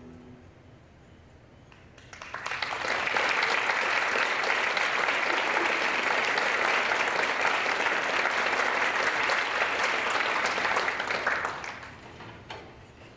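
Audience applause that starts about two seconds in, holds steady for about nine seconds, then dies away.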